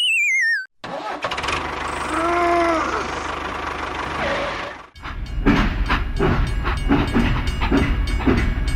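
A falling, wavering whistle sound, then from about five seconds in a rhythmic low chugging like a small tractor engine running.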